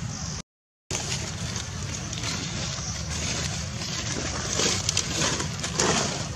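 Steady low rumble and hiss outdoors, with a brief dropout to silence about half a second in. Between about four and a half and six seconds in come a few sharp crackles, dry fallen leaves rustled by a young macaque handling and moving through them.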